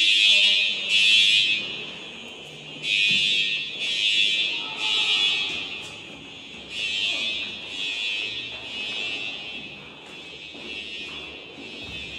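Building fire alarm sounding in the three-pulse evacuation pattern: three short blasts, a pause, then three more, repeating about every four seconds. The blasts grow fainter over the last few seconds.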